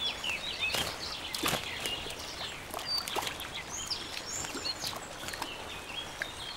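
Sparrows bathing in a shallow puddle: several short splashes and wing-flutters in the water, the strongest about one and one and a half seconds in, over many short bird chirps and whistles.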